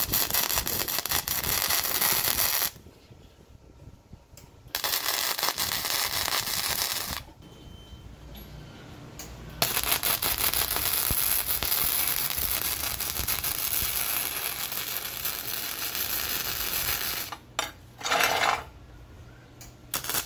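Flux-core MIG welding arc from a Harbor Freight Titanium MIG 140, crackling and spattering in on-off runs as steel pieces are tack-welded. There are two short runs of a few seconds each and then a longer run of about eight seconds. A brief burst of a different sound comes near the end.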